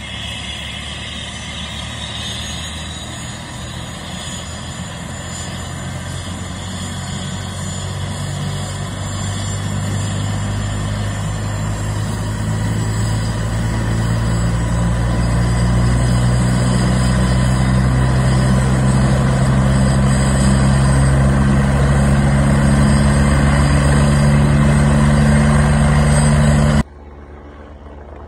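Leonardo helicopter's turbine and main rotor running on the ground, growing steadily louder and slightly higher in pitch as the rotor comes up to speed. About a second before the end the sound drops off abruptly to a much quieter one.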